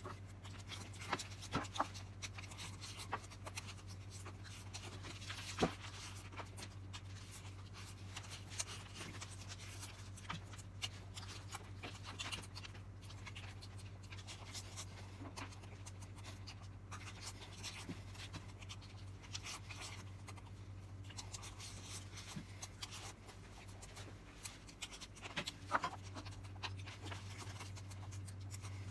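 Fingers tearing crispy batter and meat off a deep-fried whole chicken, with chewing and scattered small crackles and clicks, a few louder than the rest. A steady low hum runs underneath.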